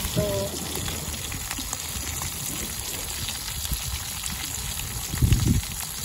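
Small whole fish shallow-frying in oil in a camping pot, a steady crackling sizzle. A brief low rumble a little after five seconds in is the loudest moment.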